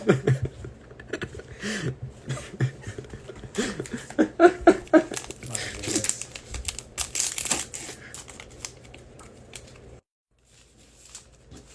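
Trading-card pack wrapper crinkling and tearing as a pack is ripped open and handled, a run of sharp crackles. A brief voice is heard about four seconds in, and the sound cuts off abruptly about ten seconds in.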